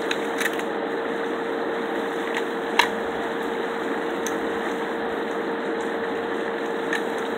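A steady, even hum runs throughout, with a few short sharp cracks, the loudest about three seconds in, as crab shells are pulled apart over a plastic bucket.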